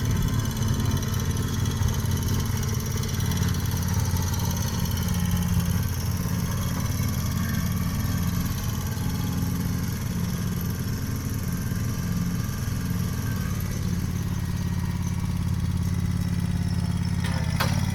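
Engine of a piece of farm or construction equipment running steadily, with no change in speed.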